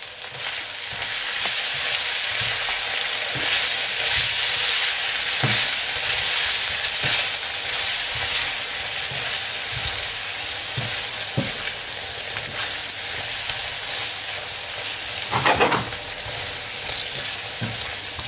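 Meatballs and onions sizzling in a hot frying pan while being stirred with a silicone spatula: a steady frying hiss with a few light knocks of the spatula against the pan, and one brief louder sound about three-quarters of the way through.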